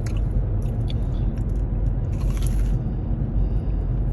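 Crunchy biting and chewing on a Korean corn dog: scattered crackles and a louder crunch about two and a half seconds in, over a steady low rumble.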